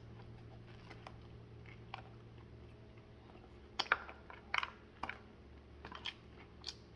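Biting into and chewing a McDonald's spicy deluxe crispy chicken sandwich close to the microphone: quiet mouth sounds with a few sharp crunches and clicks from about four seconds in.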